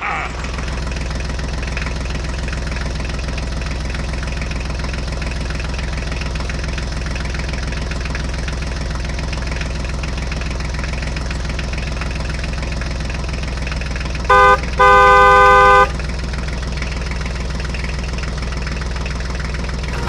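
A vehicle engine running steadily at an even speed, with a horn honking twice about fourteen seconds in: a short toot, then a longer one.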